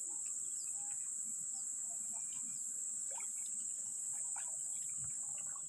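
Steady, high-pitched chorus of insects in grassland, with faint short chirps scattered through it.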